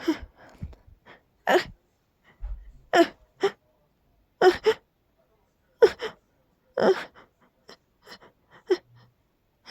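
A person's stifled sneezes in a sneezing fit: a string of short, sharp bursts about every second, some coming in quick pairs.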